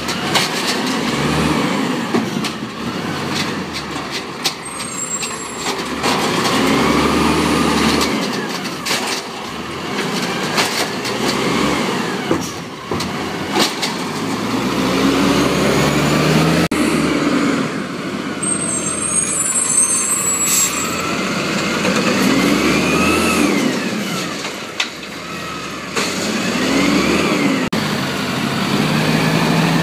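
Automated side-loader garbage truck's engine revving up and falling back again and again as it drives the hydraulic lifting arm, with short hisses of air from its brakes.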